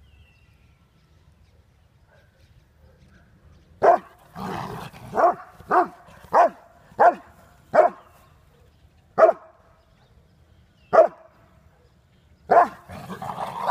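A dog barking in a confrontation with another dog: about nine sharp barks, starting about four seconds in and spaced roughly half a second to a second and a half apart, with a rough, growly noise just after the first bark and again with the last.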